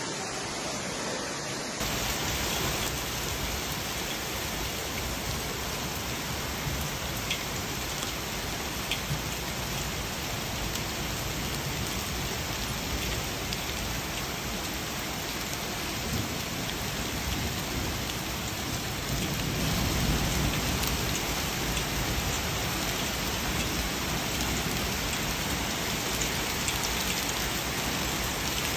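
Heavy rain and hail pouring down in a storm: a steady hiss of water, with a few sharp ticks around eight seconds in and a louder low rush of water around twenty seconds in.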